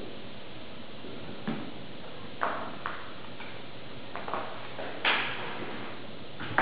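Marker pen squeaking and tapping on a whiteboard in a handful of short, separate strokes as letters are written, the loudest about five seconds in, over a steady hiss.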